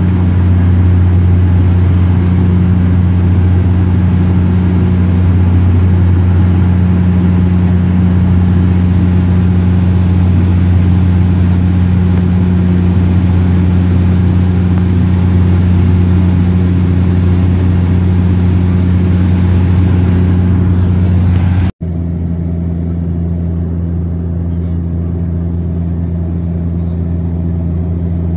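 Cabin drone of a Bombardier Dash 8 Q400 turboprop in cruise: a steady low hum from the propellers over engine and airflow noise, heard from inside the passenger cabin. The sound breaks off for an instant about three-quarters of the way through and then carries on a little quieter.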